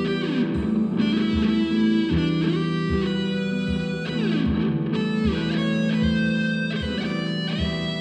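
Music: electric guitar playing over a steady beat, with some sliding, bent notes.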